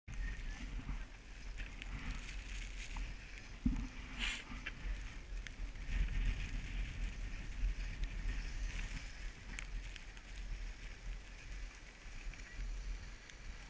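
Wind buffeting an action camera's microphone on an open, snowy ski slope: a fluctuating low rumble with a high hiss over it. A few short knocks and scrapes break in, the sharpest about four seconds in.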